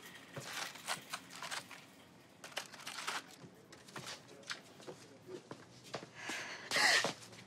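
Scattered rustles and light clicks of small plastic-packaged hardware being handled, with one louder half-second rustle near the end.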